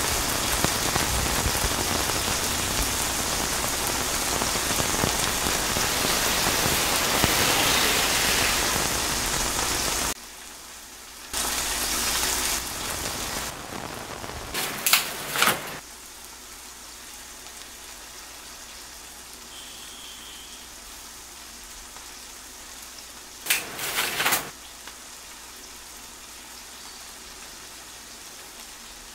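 Heavy rain falling in a dense, steady hiss that drops suddenly to a much lighter, quieter rain about ten seconds in. Two short, louder bursts of noise come later.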